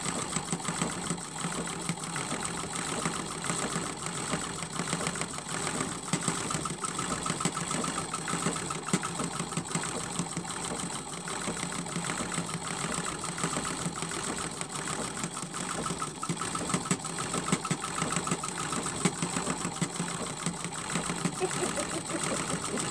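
Sewing machine running steadily, its needle stitching through a quilt in a fast, even rhythm as the quilt is guided by gloved hands in free-motion quilting.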